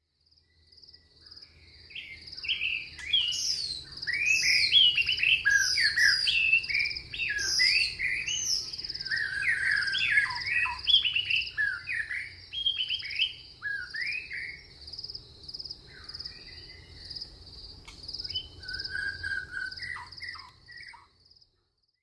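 Rainforest ambience: several birds calling with quick chirps and sweeping whistles over a steady pulsing insect trill. The bird calls are busiest in the first half and thin out toward the end.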